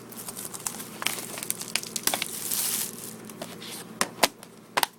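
Packaging of a DVD box set crinkling and crackling as it is opened by hand, with a few sharp clicks about four seconds in and near the end.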